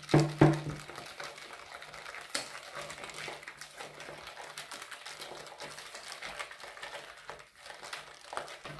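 Wire whisk beating thick ricotta cream in a stainless steel bowl: fast, steady clicking of the wires against the bowl, a few louder knocks right at the start, over a low steady hum.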